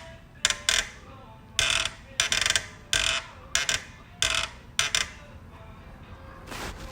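Accessory-belt auto-tensioner of an MH95S Suzuki Wagon R making an abnormal noise: short, irregular bursts of rattling chatter, several in the first five seconds and a faint one near the end, over the steady sound of the running engine.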